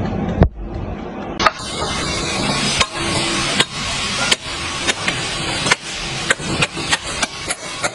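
Hammer striking a steel chisel driven into the edge of a layered slate slab to split it. About a dozen sharp metal-on-stone strikes, coming faster toward the end.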